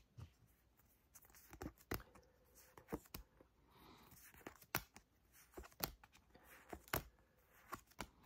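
Trading cards being flipped through one at a time and tossed onto a pile of cards: a string of soft card snaps and slaps, about one a second.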